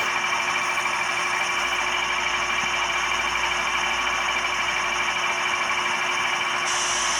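Model locomotive sound decoder (ESU LokSound v4 in a ScaleTrains GE ET44 Tier 4 GEVO) playing a diesel engine running steadily through the model's small speaker, on its factory sound settings. A hiss comes in near the end.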